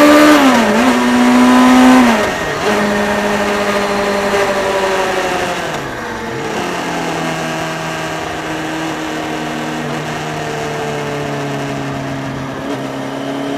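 Motorcycle engine under way, heard from an on-board action camera with wind rush. The revs are high at first, dip briefly and recover under a second in, then drop in steps about two and six seconds in as the rider eases off, settling to a lower steady note. The wind rush is loudest in the first two seconds.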